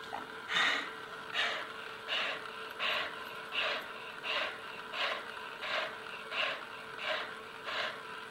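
Keeshond dog breathing hard and rhythmically through an open mouth, a loud gasping breath about every 0.7 seconds, during a seizure episode.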